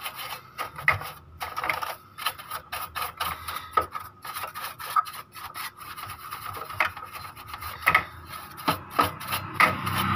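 Paintbrush bristles scrubbing dust off the plastic and metal parts inside an opened Epson L3110 inkjet printer, in brisk, irregular strokes.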